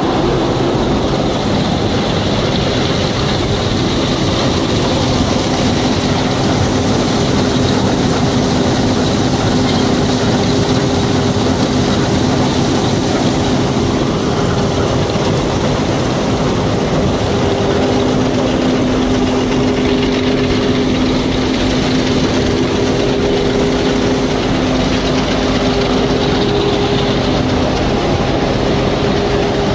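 John Deere 1065 combine harvester running steadily while harvesting canola: a constant engine and machinery drone, with humming tones that fade in and out.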